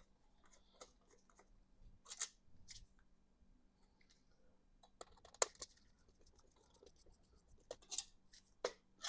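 Faint, scattered small clicks and scratchy scrapes of a Torx screwdriver working the cap screws and handling the cap of a new distributor. The sharpest click comes about five and a half seconds in.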